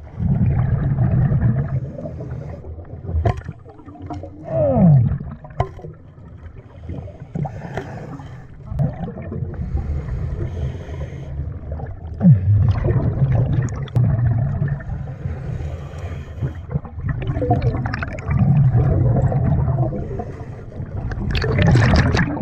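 Scuba diver breathing through a regulator underwater: exhaled bubbles rumble out in bursts every few seconds, with a few short falling squeaks between them.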